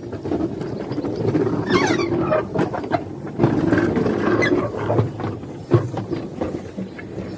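Narrow-gauge Quarry Hunslet steam locomotive and its tender running slowly past at close range, with clanking and two high squeals of metal, about two and four and a half seconds in.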